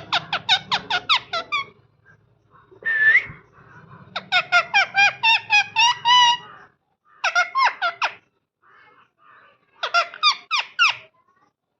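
Parrot chirping in quick runs of sharp, repeated notes, each falling in pitch, at about five or six a second. It comes in four bursts with short pauses between them, and one drawn-out rising call about three seconds in.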